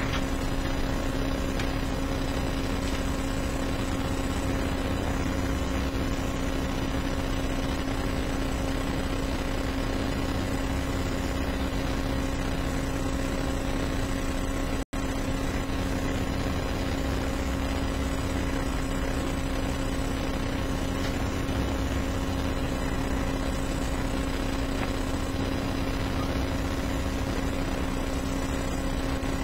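Steady hum and hiss of courtroom room tone, with one constant pitched tone held throughout. The sound cuts out for an instant about halfway through.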